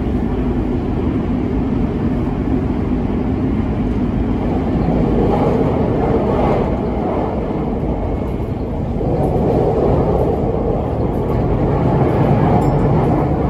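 Cabin running noise of a Toei 6300-series train in motion: a steady rumble that swells twice. A low hum fades out about two seconds in.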